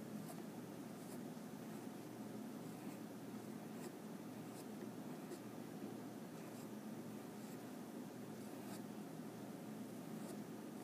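Graphite pencil scratching faintly on paper in short strokes, about one a second, as curved bumpy outlines are drawn. A low steady background hum runs underneath.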